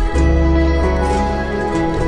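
Background music: an instrumental of held chords over a deep bass note, changing chord just after the start and again near the end.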